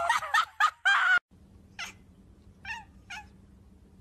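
About a second of loud gagging from a calico cat that stops abruptly, then three short, quieter meows from a tabby cat.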